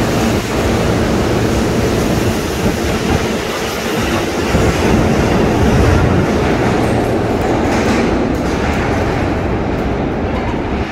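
An R160 subway train pulling out of an underground station, its cars running past on the rails and then trailing off into the tunnel. The high end of the sound thins out in the last few seconds as the train draws away.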